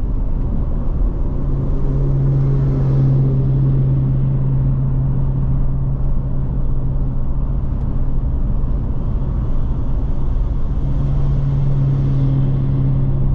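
Car travelling at highway speed: a steady road and engine rumble, with a low hum that swells twice.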